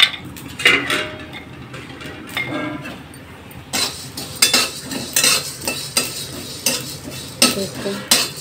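Metal stirrer scraping and clinking against a metal kadhai while dry-roasting whole spices: a few scattered clinks at first, then from about four seconds in a busy run of repeated scrapes and clinks.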